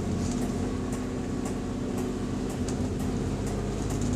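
Diesel bus engine running steadily, heard inside the passenger cabin, with a light regular clicking about twice a second.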